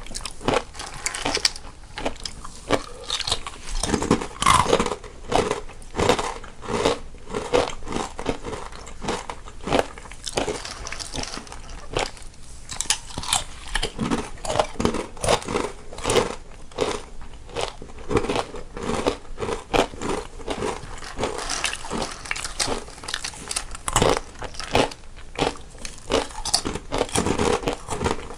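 Two people biting and chewing crunchy snacks, a dense, irregular run of crisp crunches with no pauses, one eater in each stereo channel.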